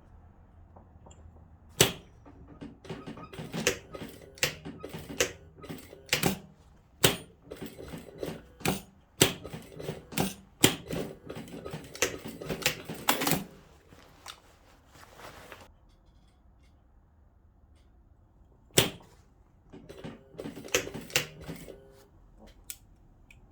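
Sewing machine restitching a seam in short, slow runs: a string of irregular clicks for about thirteen seconds, then a single sharp click and a brief cluster of clicks near the end.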